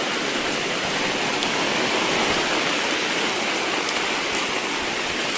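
Heavy rain falling steadily: an even hiss of rain on the wet ground and tarpaulins, with a few faint drop ticks.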